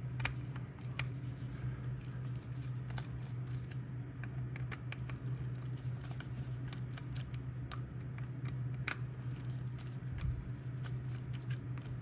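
Light scattered clicks and ticks of a Phillips screwdriver turning small screws out of a plastic plug housing, over a steady low hum.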